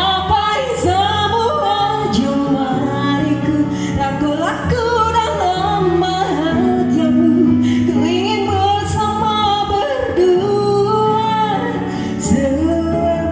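A song with backing music: a woman's singing voice carries a wavering melody over sustained chords and a bass line.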